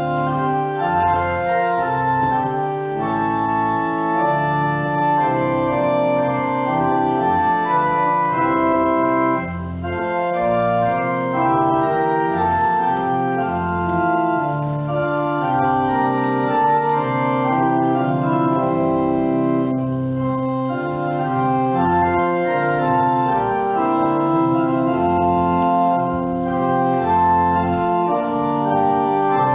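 Church organ playing slow, sustained chords with no singing, with a short dip in loudness about nine seconds in.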